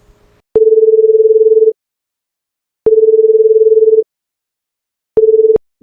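Telephone tone: a steady beep near 450 Hz sounding three times in an even on-off rhythm, about a second on and a second off, the third beep cut short near the end.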